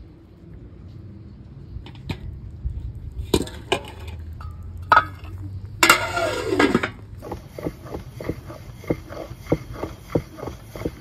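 Metal clinks of a wire skimmer and boiled potatoes against steel pots and bowls, then an aluminium lid clattering and scraping onto the pot just past halfway, the loudest sound. After that, a wooden rolling pin rolls dough out on a wooden board, knocking about three times a second.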